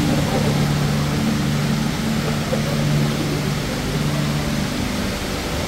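Steady rush of a tall indoor waterfall, water falling in thin streams down a multi-storey wall into a pool below.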